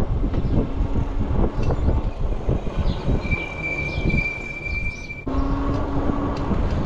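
Wind buffeting the microphone and road rumble from an electric bike riding along a city street. About three seconds in, a steady high squeal sounds for about two seconds. The sound cuts off abruptly just past five seconds and the rumble carries on.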